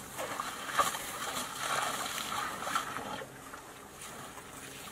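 Splashing and sloshing of water and mud as elephants walk at the edge of a puddle, with a few small clicks. It is louder for about the first three seconds, then fainter.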